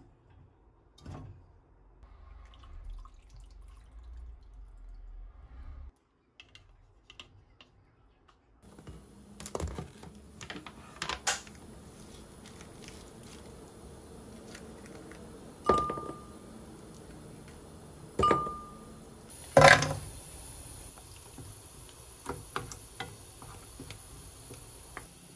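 Home cooking sounds: raw pork being put into a pot, then scattered taps and clicks, two short beeps, and a loud clatter about two-thirds in. Through the second half, minced garlic sizzles steadily in a frying pan as a wooden spoon stirs it.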